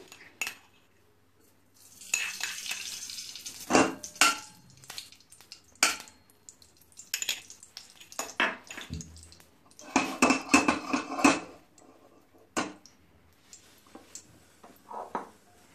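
A spoon clinking and scraping against a stainless steel kadhai as ghee is spooned in, in several short bursts of clinks with brief ringing.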